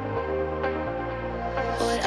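Background music: an electronic track with sustained notes over a bass line that changes note twice, growing brighter and fuller near the end.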